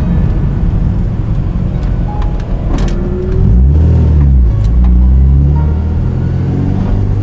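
Honda Civic Si FA5's K20Z3 four-cylinder engine running loud under way as the car is driven. The engine note falls and climbs again around the middle. A sharp click comes a little before that.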